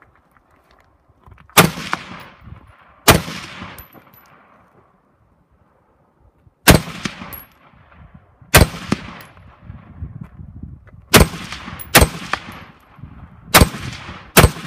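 Rifle shots fired during an IPSC rifle stage: eight single shots at uneven intervals, some in quick pairs, each followed by a fading echo, with a pause of a few seconds after the first two.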